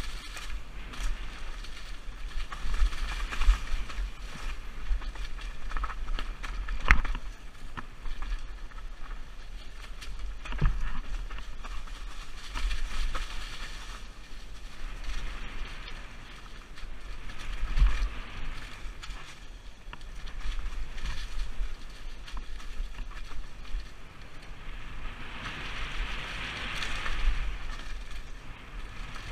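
Mountain bike descending a dry, leaf-covered dirt trail: tyres rolling over leaves and dirt and the bike rattling, with wind buffeting the helmet-mounted microphone. Sharp knocks from bumps come now and then, the loudest about seven seconds in.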